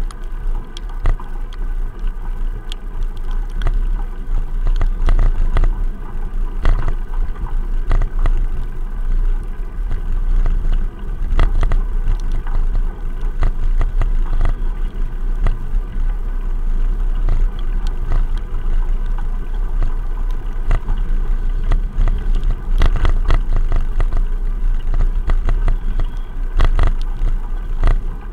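Bicycle-mounted action camera recording through its sealed waterproof case while riding on a paved path: a steady low rumble of vibration with frequent knocks and rattles from bumps in the path. Traffic passes on the road alongside, including a lorry.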